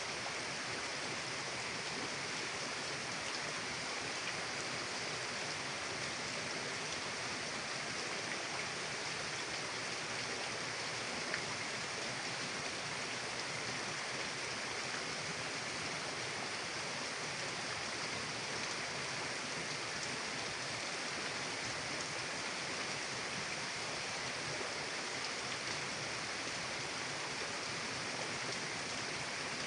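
Steady rushing of a mountain river flowing, an even hiss with no change throughout.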